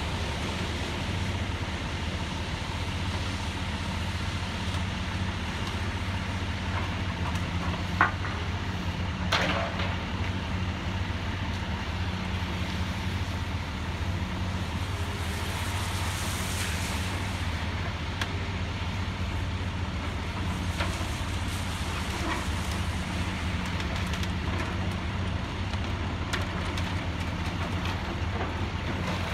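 Diesel engine of a Liebherr 954 long reach demolition excavator running steadily at a distance, with two sharp knocks about eight and nine and a half seconds in and a brief hiss near the middle.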